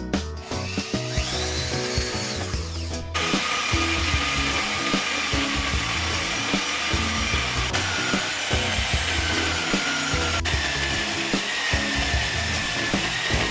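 An electric power tool spins up with a rising whine, then from about three seconds in runs steadily under load with a harsh, noisy cutting or grinding sound.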